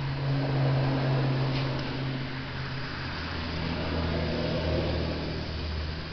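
A 25 HP Kohler engine on a Dixie Chopper zero-turn mower running steadily at low speed, a low engine hum whose pitch shifts about three seconds in.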